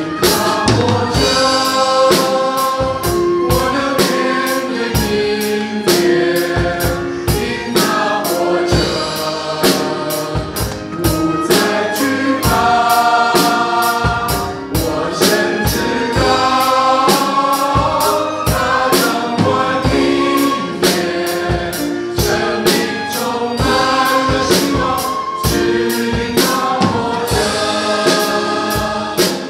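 Live worship band and choir: a male lead singer and mixed backing vocalists singing a gospel praise song over a steady drum-kit beat, with violin and keyboard accompaniment.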